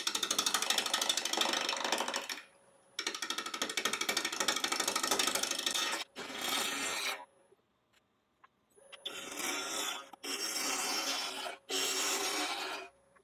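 A bowl gouge cutting the outside of a spinning ash blank on a wood lathe, in several passes of one to three seconds with short pauses between. The blank is still out of round, so the cut is interrupted, a fast even chatter as the tool meets the wood on only part of each turn.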